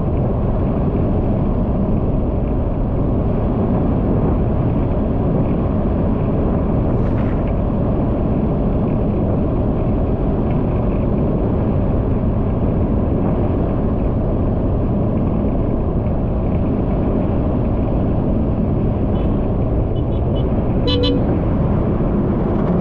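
Steady wind and road rumble from travelling at about 48 km/h on an asphalt road. Near the end a vehicle horn gives a short toot as a pickup truck overtakes.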